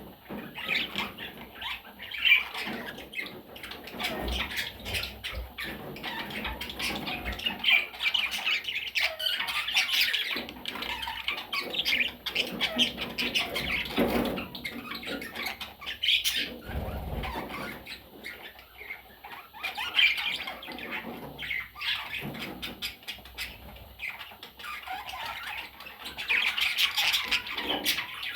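A flock of budgerigars chattering and squawking continuously, with scattered sharp clicks and several louder bouts of calling.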